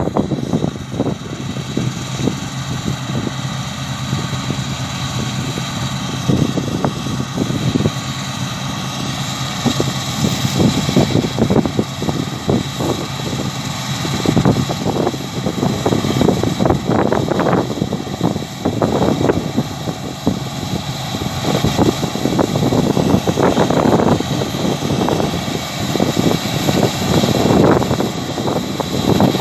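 A Claas Lexion 660 combine harvester running steadily as it cuts wheat: a constant engine drone with a steady high whine over it. Wind buffets the microphone in uneven gusts.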